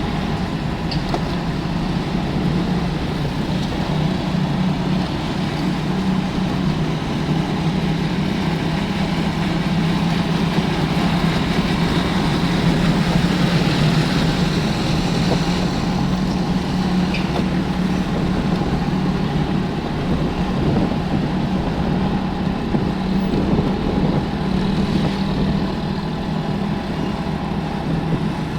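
Road-vehicle noise: an engine running steadily with a constant low drone under a wide rushing haze.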